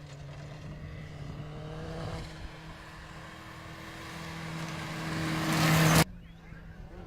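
Rally car engine running hard as the car approaches, with a steady engine note that grows louder over about two seconds and then cuts off suddenly about six seconds in.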